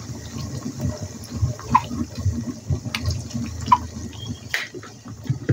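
Wooden spatula stirring tomato paste and ketchup into scrambled egg and oil in a frying pan: an irregular wet churning, with a few sharp clicks of the spatula against the pan.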